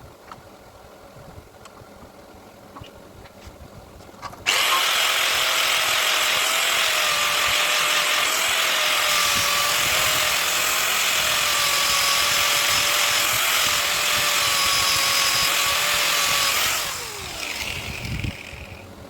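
Electric sharpening machine switched on about four seconds in, running steadily with a whine and a strong hiss for about twelve seconds, then switched off and winding down with a falling pitch near the end.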